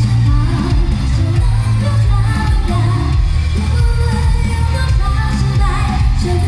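A woman singing a pop-rock song live into a handheld microphone over amplified accompaniment with heavy bass.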